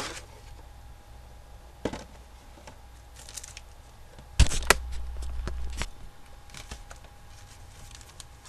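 Handling noises of cards and pack wrappers: scattered clicks and taps, with one loud knock a little past the middle followed by a low rumble of about a second and a half.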